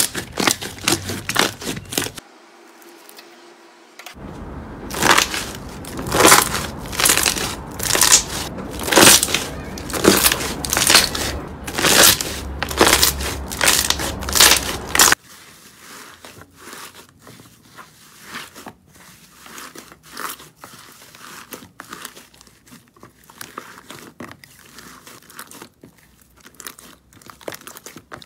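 Hands squeezing, pressing and stretching slime, in a run of short clips. From about four seconds in, loud squishing strokes come roughly once a second for about eleven seconds, then cut off suddenly to quieter, scattered squishing.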